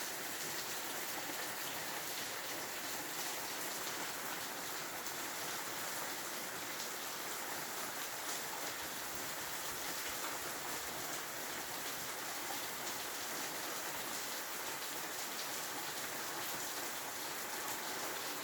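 Steady rain falling: an even, unbroken hiss of many fine drops pattering on a surface.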